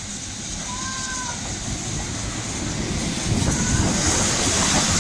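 USATC S160 2-8-0 steam locomotive drawing in along the platform and passing close by, its running noise and steam hiss growing louder. A short two-tone whistle sounds about a second in.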